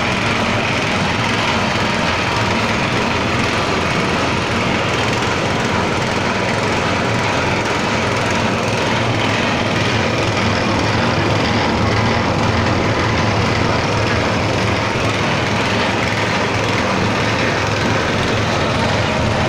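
Horizontal trough feed mixer running steadily, its motor and worm-gear reducer turning the mixing shaft as it churns dry powdered feed: a continuous even machine noise with a low hum.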